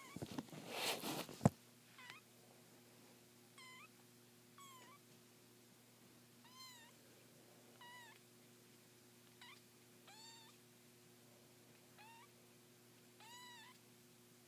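Three-week-old kittens mewing: about nine short, high mews, roughly one every second or so. A loud rustling noise fills the first second and a half.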